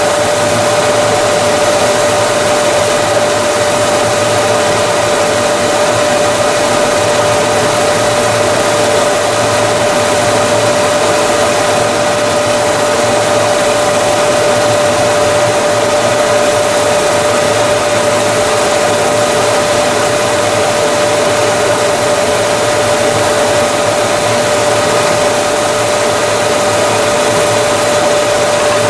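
Round-rod sanding machine running steadily while wooden dowels and curved chair parts are fed through its sanding head: a constant whine over an even rushing noise.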